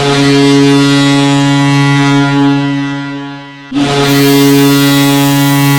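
Kahlenberg KM-135 horn sounding as a hockey goal horn, signalling a goal: a loud, deep, steady blast that fades after about three and a half seconds, then a second long blast starting straight after.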